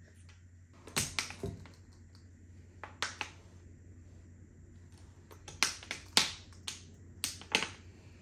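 Small, sharp, irregular clicks and taps of hard sugar-shelled chocolate sweets (Smarties) being set on end and toppling onto a wooden tabletop, a cluster about a second in and more in the second half.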